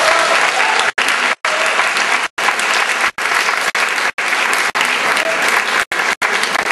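Audience applauding steadily. The sound cuts out abruptly for an instant several times.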